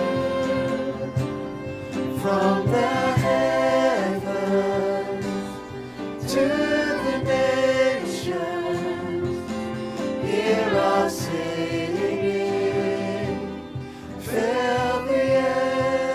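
Worship song with several voices singing long, held phrases over instrumental accompaniment, the phrases rising and falling with short breaks between them.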